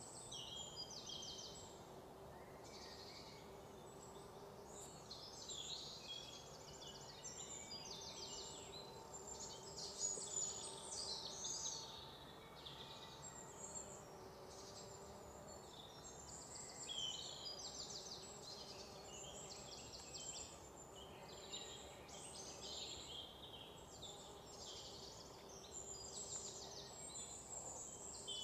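Birds chirping and trilling: many short, high calls overlapping one another, over a faint steady hum.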